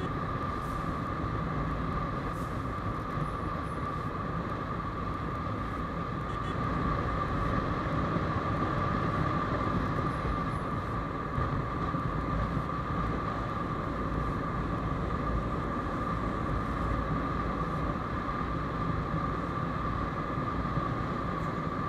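Motorcycle cruising on an open road, heard through an action camera's built-in microphone: steady engine and wind rush with a constant high hum, a little louder from about seven seconds in.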